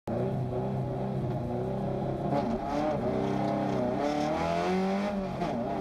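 Isuzu Gemini rally car's engine running hard. Its pitch holds steady at first, then dips and climbs again several times from about two seconds in as the revs change.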